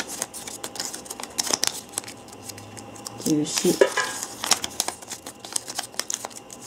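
Paper slips rustling and crackling as they are handled and folded by hand, a run of short crisp paper sounds.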